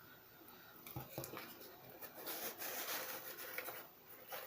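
Cardboard and paper rustling and scraping as a box is opened and its contents handled, with a few soft taps about a second in.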